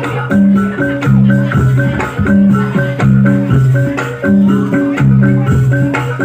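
Reog and jaran dor ensemble music: tuned struck percussion plays a repeating low note pattern that comes round about every one and a half seconds, with rattling percussion over it.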